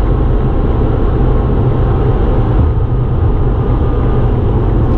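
Steady, loud rumble of engine and tyre noise heard inside a car cruising at highway speed, heavy in the low end.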